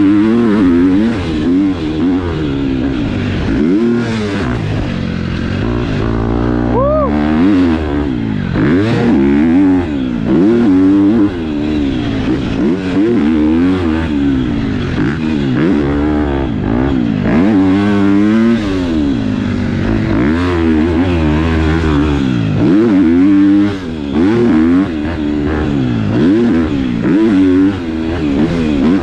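KTM four-stroke motocross bike with a Yoshimura exhaust being ridden hard, its engine revving up and falling off over and over every second or two through shifts and throttle chops.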